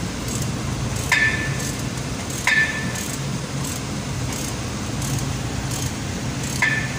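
Three sharp metal clinks with a brief ring, a steel wrench knocking against the flange bolts and nuts as they are tightened, over a steady low hum.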